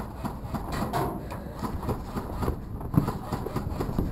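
Irregular thumps and knocks of a person moving on foot while wearing a camera, with footsteps and gear knocking over a low rumble of handling noise.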